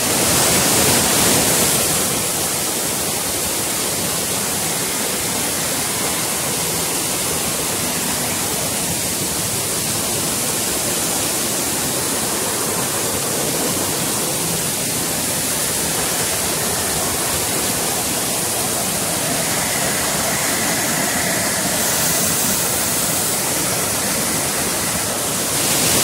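Waterfall: water pouring steadily over rock ledges in a constant, even rush. It grows hissier in the first couple of seconds and again near the end.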